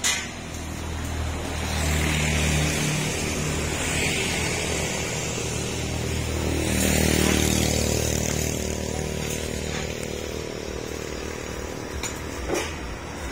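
A motor vehicle's engine running, growing louder to a peak about seven seconds in and then easing off.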